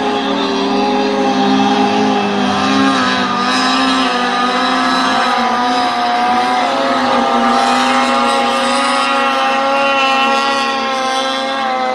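Racing snowmobiles skimming across open water at full throttle, their two-stroke engines held at high revs. A steady, high engine drone from more than one machine, its pitch wavering slightly as they run.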